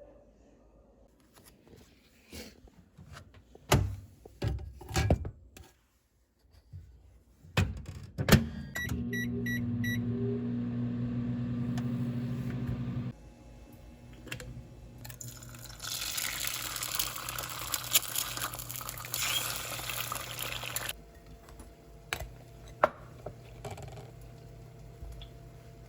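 Household kitchen-type sounds: a few knocks and clicks, then four short electronic beeps from an appliance, followed by a steady machine hum that stops abruptly after about four seconds. Later comes about five seconds of even hissing, like running water.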